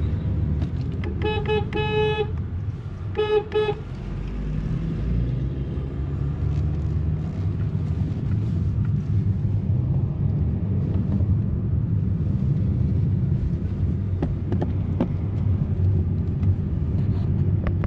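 Three short car-horn toots in the first four seconds, over the steady low rumble of the Honda Civic's engine and road noise heard from inside the cabin while driving.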